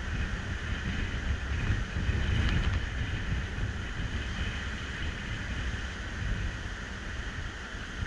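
Wind buffeting the microphone in uneven gusts of low rumble, over a steady hiss of sea waves breaking on a sandy shore.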